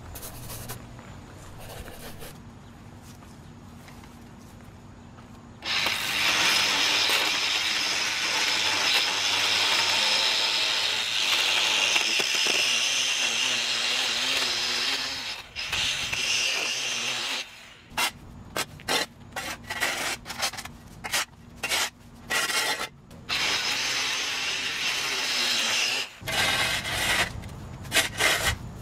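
A stick edger's blade grinds and scrapes along the concrete edge of a sidewalk, cutting back overgrown turf in a long continuous pass. After that come many short scrapes of a flat shovel dragging the cut sod and soil off the concrete.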